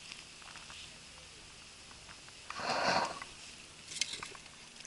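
Handling noise in an inflatable boat: a short rustling swish about two and a half seconds in, then a sharp click about a second later, over a quiet background.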